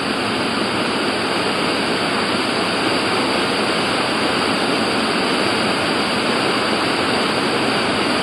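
Large waterfall pouring over rocks into a pool, a steady rush of white water.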